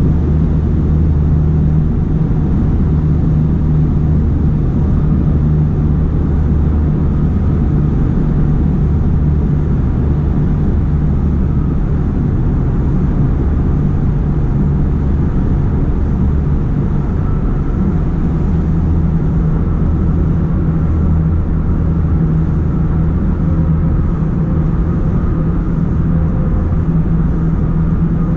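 Steady low rumble with a constant low hum, as from a moving vehicle.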